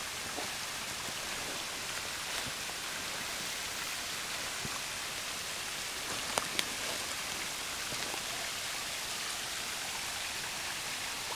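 Steady rush of a mountain stream pouring over rock into a small dam pool, with two sharp clicks a little over six seconds in.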